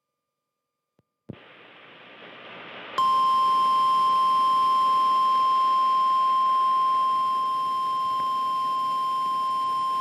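The NOAA Weather Radio 1050 Hz warning alarm tone of a required weekly test, relayed through a TFT EAS 911 and taken straight from its audio output. It opens with a second of silence, a click and a quieter hiss. About three seconds in, one steady, loud tone starts and holds.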